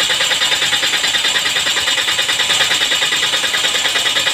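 Car fuel injectors being pulsed on an injector test bench: a rapid, even clatter of injector clicks with spray hiss, during a check for a faulty injector.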